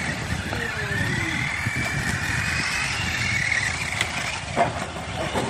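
Radio-controlled cars racing on a dirt track. Their motors give a high whine that rises and then falls as they speed up and slow.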